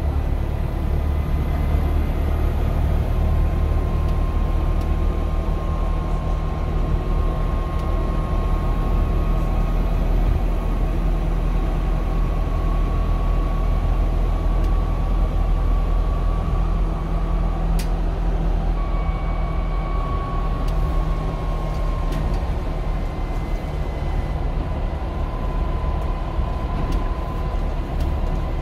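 Optare Metrodecker double-decker bus on the move, heard from inside on the upper deck: a steady low rumble with a thin whine that drifts a little up and down in pitch. A single sharp click about eighteen seconds in.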